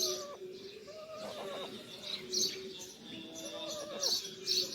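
Indian ringneck parrot chicks calling: a held, wavering low call with short high chirps coming again and again.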